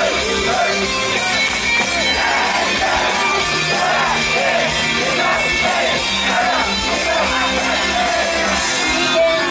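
Japanese idol pop song performed live by a female duo: a bright sung melody over a loud rock-pop band accompaniment, filling a large hall.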